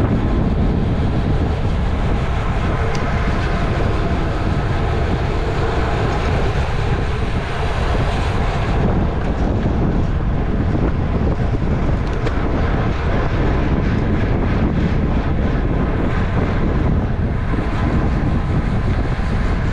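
Loud, steady wind rushing over the microphone of a cyclist's onboard camera at race speed.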